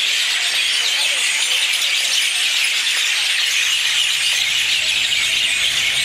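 A large flock of small birds chattering in a loud, continuous din of overlapping chirps as they settle to roost in the trees. A low rumble joins underneath about three seconds in.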